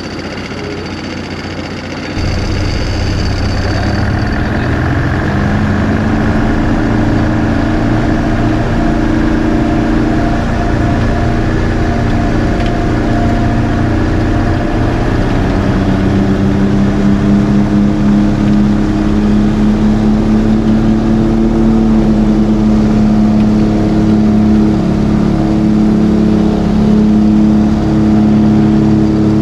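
Light aircraft's piston engine and propeller running steadily. It gets louder suddenly about two seconds in, and its pitch climbs twice: a few seconds in and again around the middle, as power is added.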